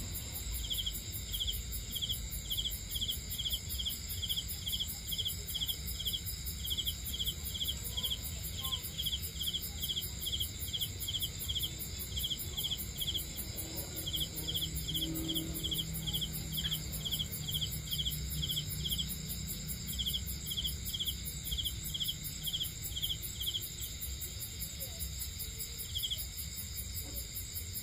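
Crickets and other insects singing: one cricket gives short chirps in quick little groups over a steady, high, buzzing trill from other insects. The chirping breaks off now and then and dies out near the end.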